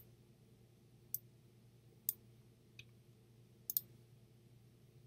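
Computer mouse clicking: a few single sharp clicks roughly a second apart and a quick double click past the middle, over a faint steady low hum.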